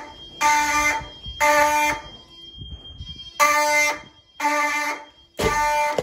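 Simplex 4903-9104 fire alarm horns sounding the temporal code-3 evacuation pattern: buzzy half-second blasts in groups of three, with a pause of about a second and a half between groups. A faint steady high-pitched tone runs underneath.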